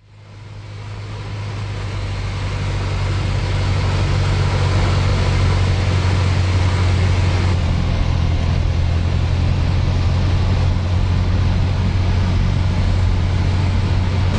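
Single-engine propeller aeroplane's engine and propeller droning steadily, heard from inside the cockpit, on final approach to land. The sound fades in over the first couple of seconds.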